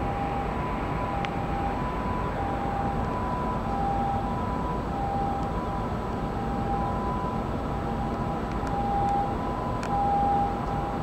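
Steady hum of city road traffic, with a two-tone hi-lo siren alternating between a higher and a lower pitch about every half-second, the pattern of a Japanese ambulance; the siren grows a little louder near the end.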